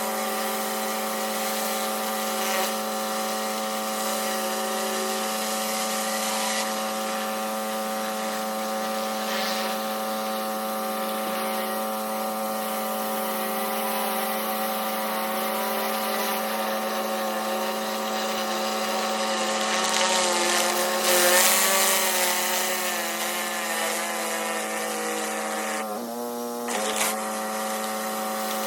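Pressure washer running steadily: a constant engine-and-pump drone under the hiss of the high-pressure water spray on the driveway. The spray hiss swells for a couple of seconds past the middle, and the machine dips briefly near the end before picking back up.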